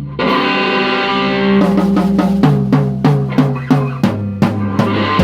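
Heavy, djent-style metal played on distorted electric guitar and drum kit. Held chords give way about a second and a half in to short, hard-hit chords struck together with the drums, about three a second.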